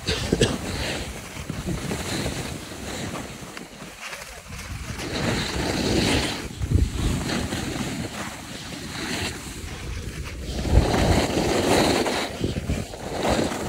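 Skis hissing and scraping over the snow in a run of turns while wind buffets the microphone; the rushing noise swells and eases every few seconds.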